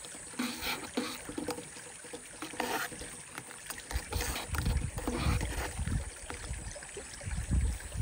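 Creek water running, overlaid with irregular clicks and knocks of camp gear being handled, and several heavy low thumps in the second half.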